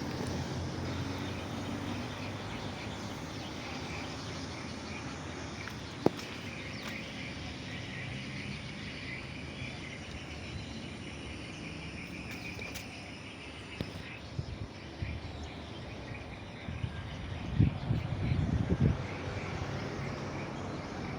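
Old 1990s air conditioner units running, a steady hum and rush of fan and compressor noise. One sharp click about six seconds in and a few low bumps near the end.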